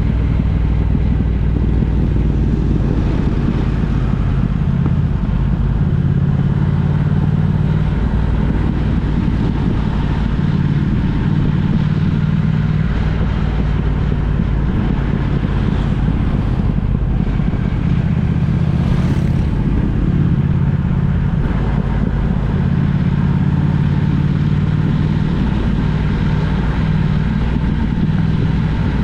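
A road vehicle travelling at a steady pace: a constant low engine drone mixed with road and wind noise, with the engine pitch wavering only slightly.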